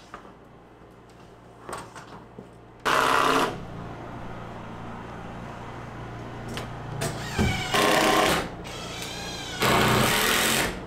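Handheld power drill driving fasteners in three loud bursts, each about half a second to a second long, with the motor's whine rising and falling in pitch between them.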